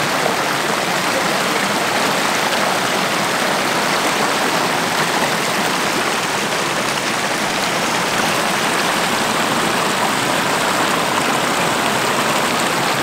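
Muddy floodwater from an overflowing lagoon pouring over its spillway: a steady, loud rushing.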